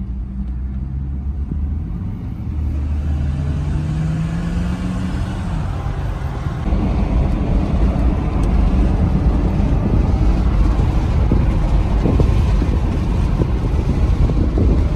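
Car driving at highway speed, heard from inside the cabin: a low engine hum that rises slightly as it speeds up, then from about seven seconds in a louder, steady rush of wind and tyre noise.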